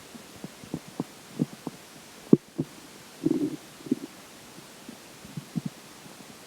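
Human stomach and intestines gurgling during digestion: irregular soft pops and bubbles. There is a sharp click about two seconds in and a longer bubbling gurgle around the middle.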